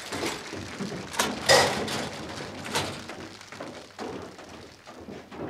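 Cigarette vending machine being worked by hand: a series of mechanical clunks and knocks, about six in all. The loudest comes about a second and a half in, with a short metallic ring.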